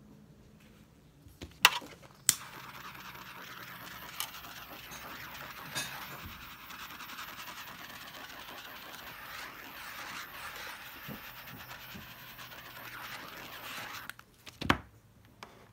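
Handheld butane torch: two sharp igniter clicks, then a steady hiss of gas and flame for about twelve seconds that cuts off abruptly, followed by one more click.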